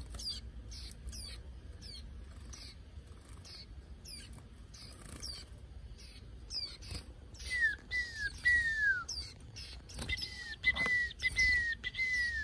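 Caged young Japanese white-eyes chirping: a steady scatter of thin, high, quickly falling chirps. From about halfway in comes a run of louder, lower whistled notes, each sliding downward, three and then four in a row.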